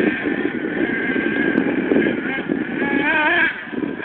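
Car engine heard from a distance, running hard as the car races along a dirt track, its pitch wavering up and down about three seconds in.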